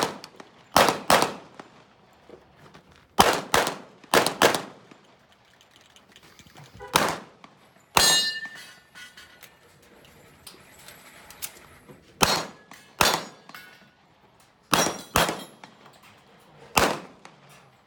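A string of pistol shots, mostly in quick pairs, with steel targets clanging as they are hit; one hit about eight seconds in leaves the steel ringing briefly.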